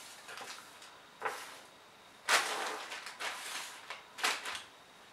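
Cardboard candy boxes and plastic sweet packets being slid and shuffled across a wooden table, in several short rustling bursts, the loudest and longest about two seconds in.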